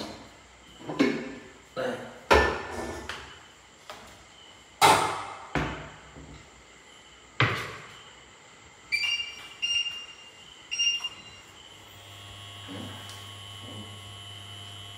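About six hard knocks and clatters of kitchen cupboard doors and cookware being handled. Then an induction cooktop beeps three times as its touch controls are pressed, and about a second later it starts running with a steady low hum and a faint high whine.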